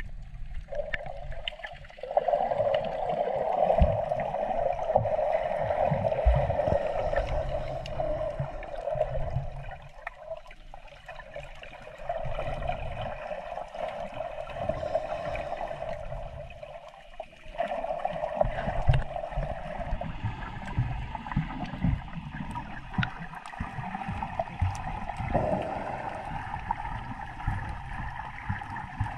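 Seawater gurgling and sloshing around the microphone in the water, with a changing muffled rush and scattered short knocks.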